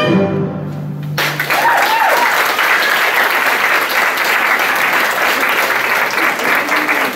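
The song's final held note ends about a second in, and an audience breaks into loud applause, with a short whoop near the start.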